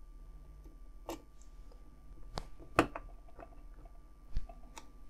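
A few sharp, faint clicks and ticks from a small screwdriver driving a tiny screw into a plastic scale-model supercharger housing, with one soft knock near the end.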